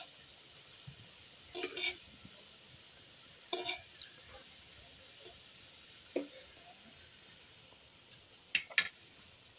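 Gulab jamuns deep-frying in oil in a kadai on a low flame, a faint steady sizzle. Several short clinks and scrapes, about six in all, come from the wire spider strainer working in the pan.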